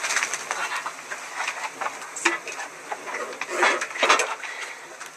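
Open wood fire crackling with irregular sharp snaps, mixed with metal kettles clinking as they are handled; the snaps come thickest around four seconds in.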